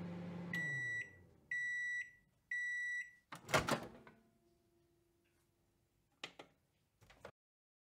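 Microwave oven running with a low hum that winds down and stops, then three beeps about a second apart marking the end of the heating cycle, followed by a loud clunk as the door opens and two faint short clicks near the end.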